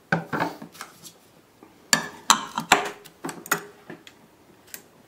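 Clicks and clatter of abrasive discs being handled and swapped on a flat-hone sharpening machine's platter, with the machine stopped: the 60-micron microfinishing film disc comes off and a 30-micron disc is set down in its place. About ten separate knocks, bunched near the start and around the middle.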